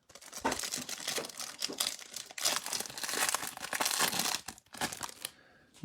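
A trading card hanger box being torn open, its wrapping crinkling and tearing in a dense run of crackles that stops shortly before the end.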